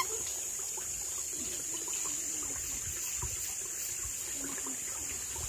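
Steady high-pitched drone of insects, even and unbroken.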